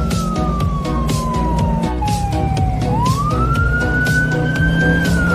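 Electronic police-siren wail from a toy police car: one slow downward sweep in pitch, then a quick rise that levels off, over a beeping electronic tune with a pulsing beat.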